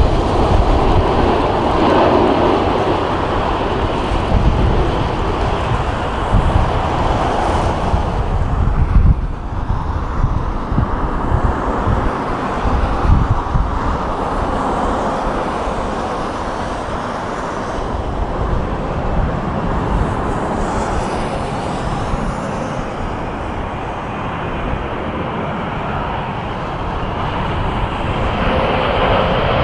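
Jet engine noise of airliners on final approach: first a Jetstar Airbus A320, then, after a change about nine seconds in, a Qantas Boeing 787-9 with Rolls-Royce Trent 1000 engines. The steady rumble grows louder near the end as the 787 comes closer.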